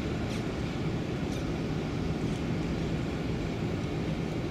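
Tugboat's diesel engines running with a steady low drone as the boat passes close by, mixed with the wash of water along the hull.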